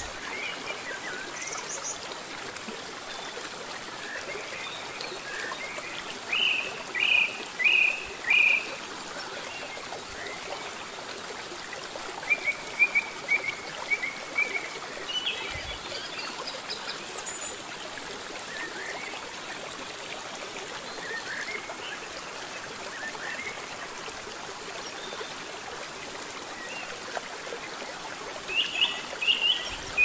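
Small rocky mountain stream running steadily over stones, with birds chirping short phrases over it, loudest about seven seconds in and again near the end.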